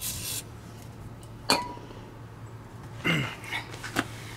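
A short hiss from an aerosol spray can squirted up under the truck at the start. A sharp metallic clink comes about a second and a half in, and a man coughs near the end.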